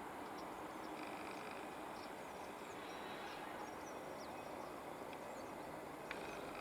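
Quiet open-air ambience: faint, scattered short high bird chirps over a low steady hiss.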